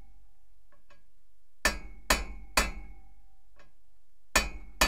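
Hammer striking a socket set on a U-joint bearing cap to drive the cap down into the drive shaft yoke. Five sharp metal-on-metal blows, three about half a second apart and then two more near the end, each with a short ring.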